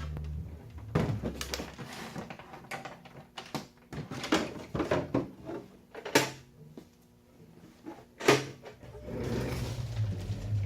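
Irregular mechanical clacks and knocks from an Adler J2 portable typewriter being worked or handled, with two sharper knocks in the second half. A low hum fades out early on and returns near the end.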